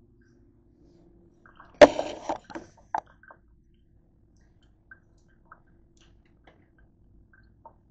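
Handling noise: a sudden burst of knocks and clatter lasting about a second, starting about two seconds in, as the camera is set down on the countertop, followed by a few faint clicks.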